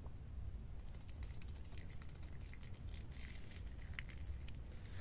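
A thin stream of vinegar essence poured from a bottle onto a rag in a vole hole, heard as a run of faint small ticks and spatters as the liquid hits cloth and soil.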